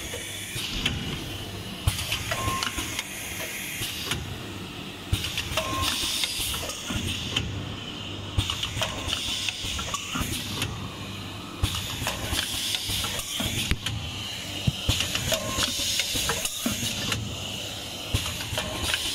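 Automatic rotary tube filling machine running, with a steady motor hum. Air hisses in bursts every two to three seconds, in time with the machine indexing, among frequent sharp clicks and clacks of the turntable and tube feed.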